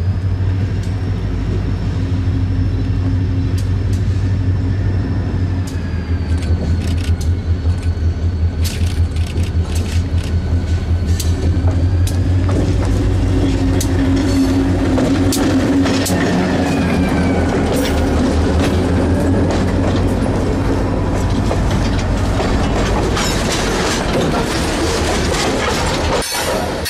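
Illinois Railway diesel freight train passing close by: the locomotive's engine drones with a pulsing low rumble as it comes up and goes past. The freight cars then roll by with sharp wheel clicks over the rail joints, building into a steady rushing rumble.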